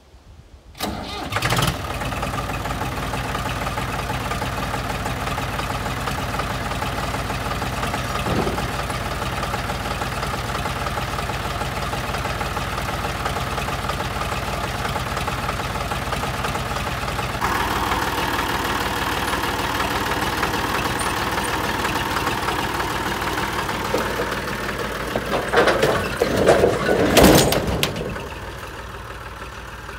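Tractor engine starting about a second in and then running steadily; about halfway through it is revved higher as the tractor drives off a flatbed trailer. A few loud clunks come near the end as it rolls off the trailer, then the engine sound drops as it moves away.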